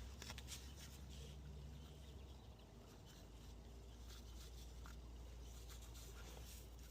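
Near silence: a faint steady low hum with a few faint, scattered ticks.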